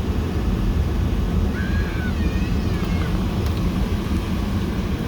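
Steady low rumble of background noise, with a short faint high gliding tone about a second and a half in.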